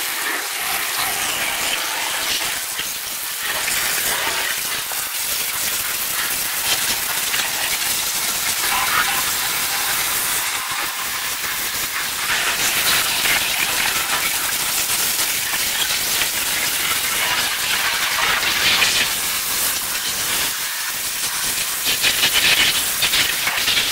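A steady hissing spray of water, rinsing an engine bay, that cuts off suddenly at the end.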